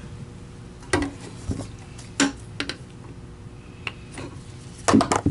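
Scattered clicks and knocks of tools and parts being handled on a workbench, with a cluster of louder clatter near the end, over a faint steady hum.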